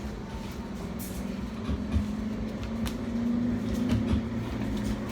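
Edinburgh tram (CAF Urbos 3) running between stops, heard from inside: a steady low hum of the traction motors and running gear, rising a little in pitch through the middle as it gathers speed, with a few light clicks.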